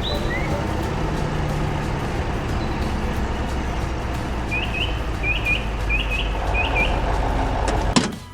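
Steady low engine rumble of a large farm machine, with short bird chirps in pairs from about halfway through. A sharp knock comes near the end, just before the sound cuts off.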